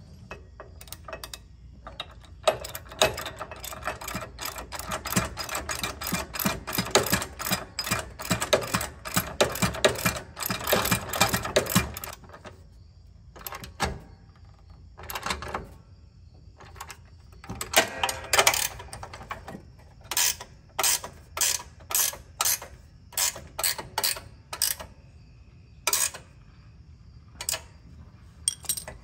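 Hand socket ratchet clicking as it tightens bolts on a lawn tractor's hitch mount. It runs in a long fast stretch of clicks early on, then a few separate bursts, and ends in short strokes about every two-thirds of a second as the bolts snug up.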